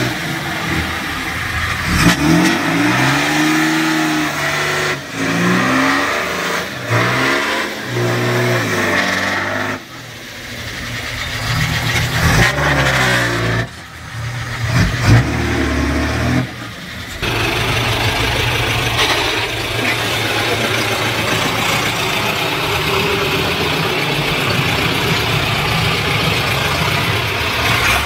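Heavy truck and tractor engines revving up and down, with several abrupt cuts between shots; over roughly the last ten seconds an engine runs more steadily.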